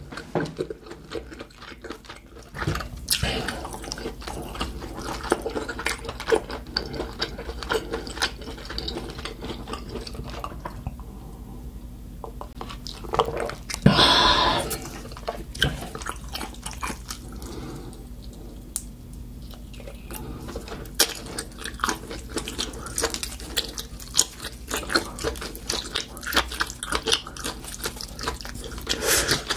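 Close-miked chewing of glazed grilled octopus: a stream of wet smacks and small sticky clicks. One louder, brief noisy sound comes about halfway through.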